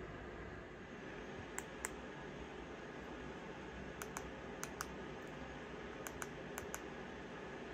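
Plastic buttons of a TV remote control clicking as number keys are pressed, in about five pairs of short clicks (press and release) at uneven gaps, over a steady faint room hiss.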